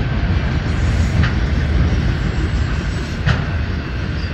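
Autorack freight cars rolling past, a steady low rumble of steel wheels on rail with two sharp clicks, as the tail end of the train goes by; the rumble eases slightly near the end.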